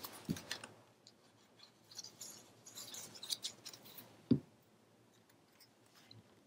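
Paper strips being handled on a cutting mat, with faint rustling and light scraping. About four seconds in there is one soft thump as a plastic bottle of liquid glue is set down on the mat.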